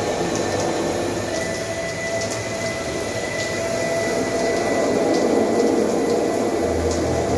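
Overhead rain shower running, water falling from the ceiling panel onto a tiled floor as a steady rushing hiss. A low hum comes in near the end.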